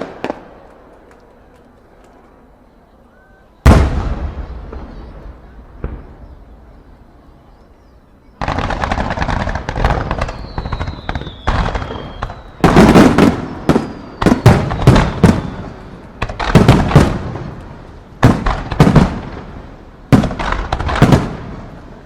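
Aerial fireworks bursting. After a lull, one loud bang goes off about four seconds in. From about eight seconds there is dense crackling, which builds into rapid volleys of loud bangs in quick clusters.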